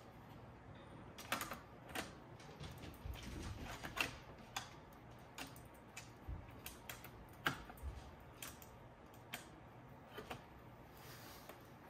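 Irregular light clicks and knocks of the A&D GX-7100LTD cassette deck's front panel and chassis parts being handled and fitted by hand, with sharper knocks about a second in, about four seconds in and at about seven and a half seconds.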